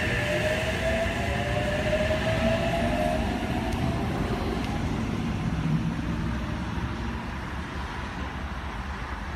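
Oscar (H-set) double-deck electric train pulling away from the platform. Its motor whine rises in pitch over the first few seconds over a steady rumble of wheels on track, and the sound fades as the train leaves.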